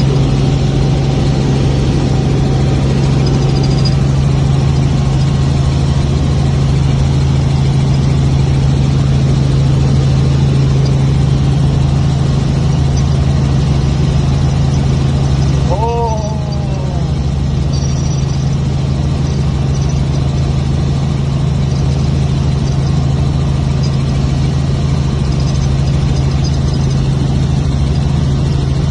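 Helicopter in flight: a steady low drone of engine and rotor, with a brief falling tone about halfway through.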